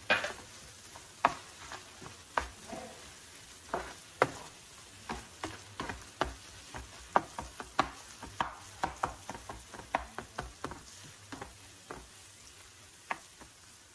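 Nylon spatula tapping and scraping in a non-stick frying pan as chopped capsicum, onion and tomato are stirred, with irregular sharp taps a few times a second. A faint sizzle of frying runs underneath.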